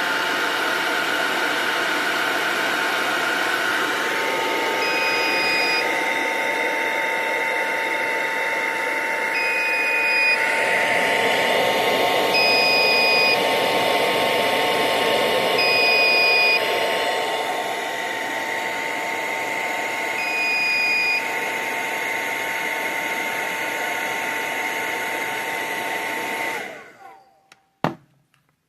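Hand-held hair dryer blowing steadily with a motor whine, switching off near the end with a click. Over it, the alarm's buzzer gives five short, high beeps a few seconds apart as the heated thermistor sets off the burglar alarm.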